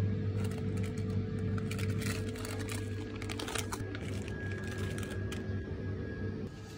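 Plastic packets of frozen fish cake crinkling and rustling as they are handled and put into a plastic shopping basket, over the steady hum of refrigerated freezer cases. The crinkling runs in a cluster of crackles from about half a second in until near the end, and the hum drops off just before the end.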